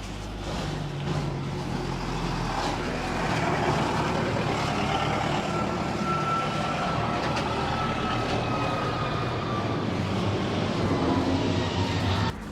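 Road traffic running close by, a vehicle engine droning under a dense rumble, with a faint high tone slowly falling in pitch. The whole sound drops off abruptly near the end.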